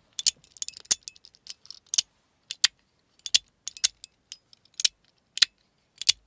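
Schrödinger's Cat PEI fidget slider being slid back and forth, snapping with sharp, irregular clicks, some in quick clusters. With two magnets set in the middle, the magnets pull hard enough to drag the ball-and-spring detent along, so each snap has a crackly, crunchy sound that comes from the ball and spring, not the magnets.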